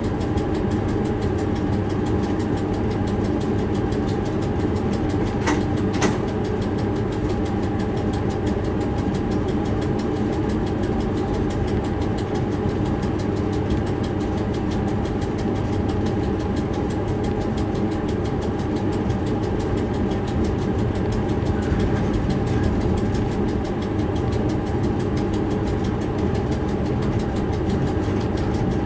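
Steady machine drone inside a freight locomotive's cab, a low rumble with a constant hum over it. Two sharp clicks come about half a second apart, roughly five and six seconds in.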